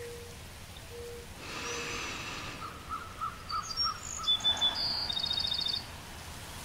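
Birdsong: short low notes about once a second, then a run of quick repeated calls and high chirps that end in a fast trill.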